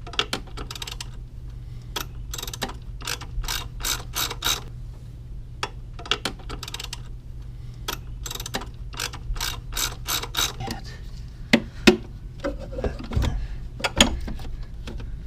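Socket ratchet clicking in short quick runs as a 10mm deep-well socket turns the battery nuts, with a few heavier knocks near the end.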